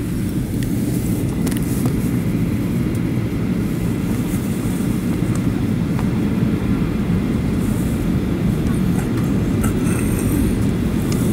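Steady low rumble of cabin noise inside a Malaysia Airlines Boeing 737 on descent: engine drone and airflow heard from a window seat, even and unbroken.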